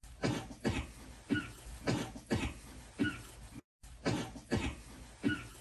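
A young man's fit of repeated harsh coughs, about nine in a row, muffled into his sleeve. The coughing is brought on by the fiery hot sauce of the spicy food he has just eaten.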